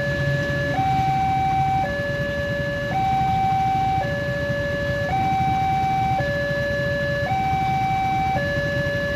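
Railway level crossing warning alarm sounding its two-tone signal, alternating between a lower and a higher tone about once a second, while the barriers are down: the warning for an approaching train.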